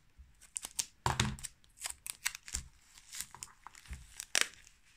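Clear sticky tape pulled off its roll and torn in several short, irregular rasps, with rustling as the fabric-wrapped bundle is pressed and handled.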